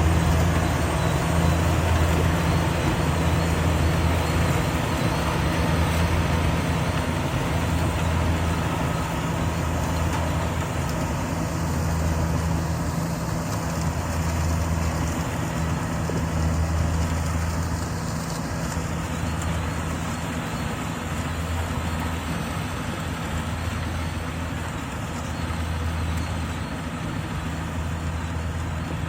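Rice combine harvester running steadily while it harvests, its engine and machinery giving a low hum that swells and fades every couple of seconds over a constant mechanical din.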